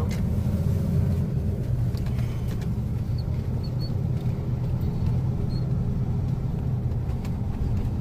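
Steady low rumble of engine and tyre noise heard from inside the cabin of a car driving on a paved road.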